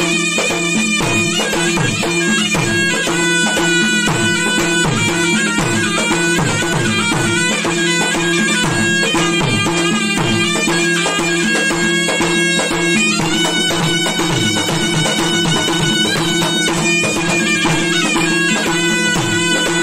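Gendang silat ensemble playing: a serunai (Malay reed shawm) plays a winding, reedy melody over two double-headed gendang drums beating a quick, interlocking rhythm, with many strokes dropping in pitch. A hanging gong hums steady and low beneath.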